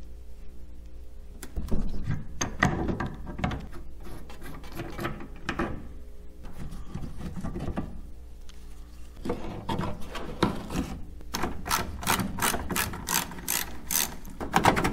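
Mechanical clicking and rattling from hand work on metal, irregular at first, then a steady run of sharp clicks about three a second near the end.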